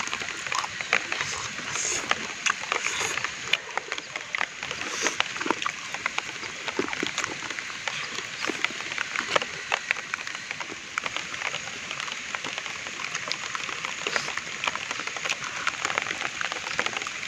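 Close-up chewing and wet mouth sounds of a raw leafy herb being eaten: a dense run of small crackles and clicks.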